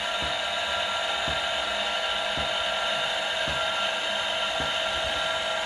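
A steady, high mechanical whine, like a small motor running, with soft low knocks about once a second.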